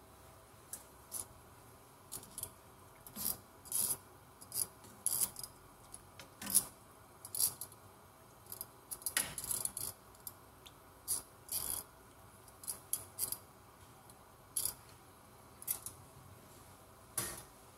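Long metal kitchen tongs clicking together and tapping against a pan as chicken pieces are turned in water: a run of short, sharp, irregular clicks, one to three a second.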